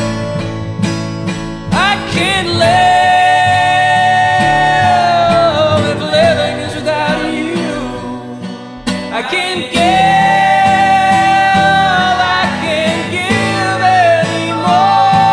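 Acoustic guitar strumming chords, with a voice coming in about two seconds in and singing long held notes that waver at their ends.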